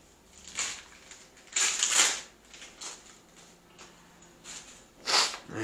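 Gift wrapping paper being torn and rustled in a series of short bursts as a present is unwrapped, the loudest a little under two seconds in and another near the end.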